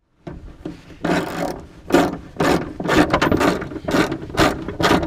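Socket ratchet wrench turning a screw in a small aircraft's fairing: repeated ratcheting strokes about two a second, louder from about a second in.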